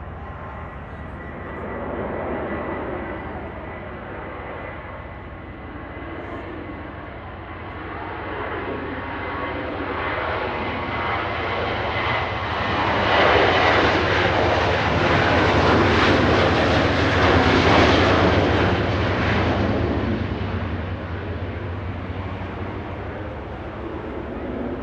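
Airbus A320-family twin-engine jet airliner on final approach, its engine noise building as it flies low overhead and loudest for several seconds past the middle, then fading away. A thin steady whine sits under the noise while it is still approaching.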